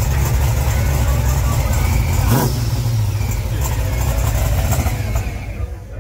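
A car engine running loud and close, a steady low rumble, with a short sharp noise about two and a half seconds in; it fades out near the end.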